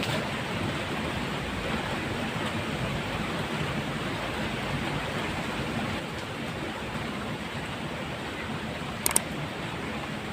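Steady rain falling, an even hiss, with a brief sharp clatter about nine seconds in.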